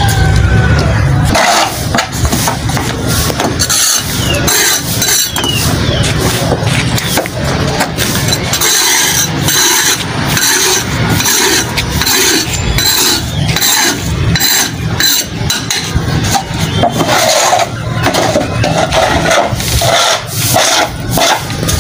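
A small hand tool scraping and chopping at dry soil and debris on a concrete floor, in a quick, uneven run of strokes.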